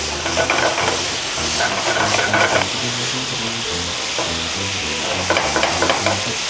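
Chicken thighs sizzling hard in a hot frying pan as white wine vinegar boils off over high heat to drive off its excess sourness, with metal tongs turning and scraping the pieces.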